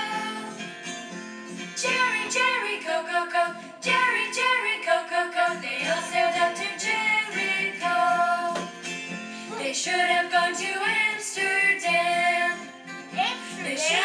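Recorded song playing, a woman singing over guitar and a steady beat.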